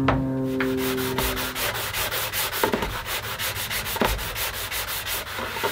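Hand-sanding dried wood filler flush on a hollow-core door with a 220-grit sanding block: quick back-and-forth rubbing strokes, several a second.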